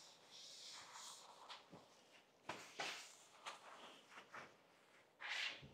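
Faint hand rubbing and wiping on a cast iron saw table: a soft hiss of strokes at first, then a few short, irregular swishes.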